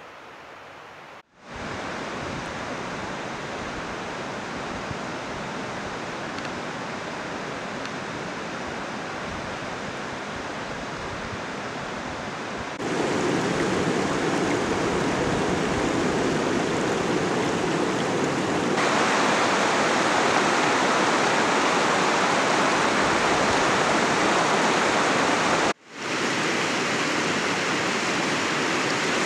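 The North Fork Quinault River rushing over a cobble bed: a steady, even roar of water. It gets louder about halfway through and breaks off for a moment twice where the footage is cut.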